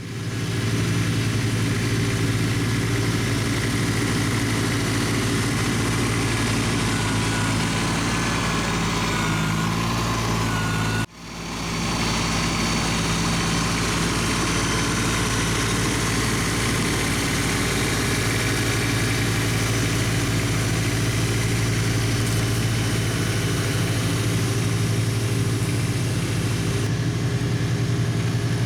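LS MT125 compact tractor's three-cylinder diesel engine running steadily. The sound drops out for an instant about eleven seconds in.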